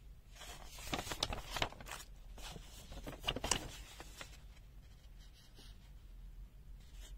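A folded paper instruction sheet rustling and crackling as it is handled and turned over, in two spells within the first four seconds.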